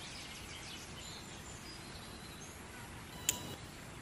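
Birds chirping over a steady low hiss of background noise, the chirps mostly in the first second, with one short sharp click about three seconds in.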